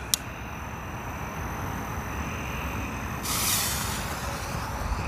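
A sharp click just after the start. About three seconds in, the fuse of a Survival of the Fittest firework catches and hisses, spitting sparks for about a second before the hiss fades.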